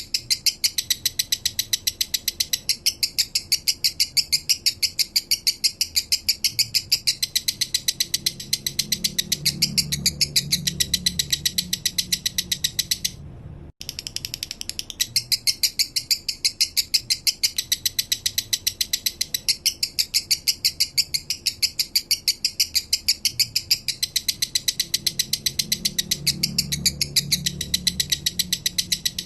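Male lovebird singing its 'minor' song: a long run of rapid, evenly paced high chirps, breaking off briefly about 14 seconds in before it starts again.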